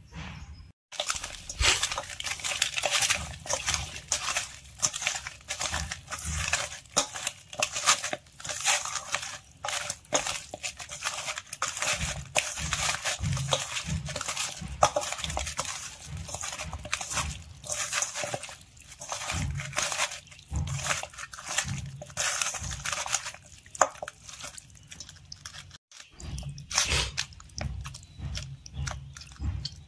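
A hand squishing and kneading raw chicken pieces in spice powder in a steel bowl, mixing the marinade: irregular wet squelches and slaps. There is a brief break about 26 seconds in.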